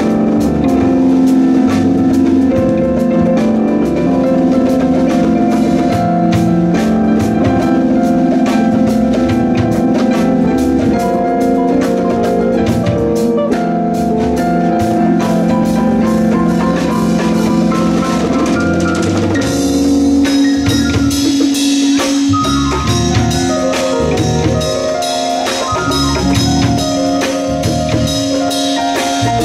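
Small live jazz band playing an instrumental passage with no vocals: drum kit, bass guitar, keyboard and guitar holding sustained chords. About two-thirds through, the drums come in harder with bright cymbals and the bass notes stand out as separate pulses.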